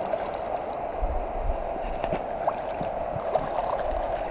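Steady rush of fast river current, with a few faint, sharp splashes from a hooked brown trout thrashing at the surface.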